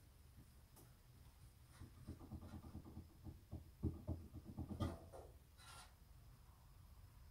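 Faint rattling, small clicks and a short scrape of hands working at a metal fluorescent light fixture mounted to the ceiling, with two louder knocks a little past the middle.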